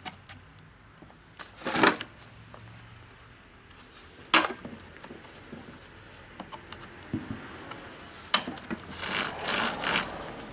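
Hand work on a chainsaw's bar and chain while the chain tension is being set: short metal scrapes about 2 and 4 seconds in, then a longer stretch of scraping and rasping near the end, as the chain is drawn along the bar.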